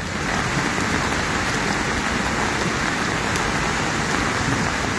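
Heavy rain falling steadily, mixed with the rushing of a swollen, rising river in flood.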